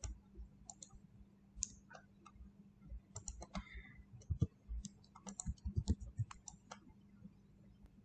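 Computer mouse and keyboard clicks while shapes are copied, pasted and dragged in a spreadsheet. The clicks are faint and scattered, with a quick run of them between about three and seven seconds in.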